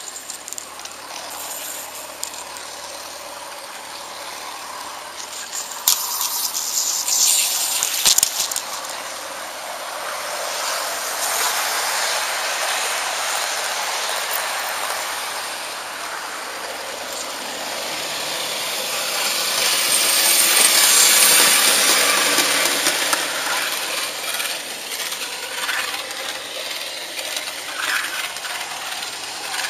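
HO-scale model train rolling along the track, a steady mechanical rattle of wheels on rails, with a cluster of sharp clicks about six to eight seconds in and the rattle swelling louder a little past the middle.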